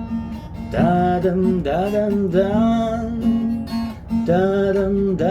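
A song intro: a voice sings a wordless 'da-dam-da-dam-dam' melody over a strummed acoustic guitar, in two phrases with a short dip between them.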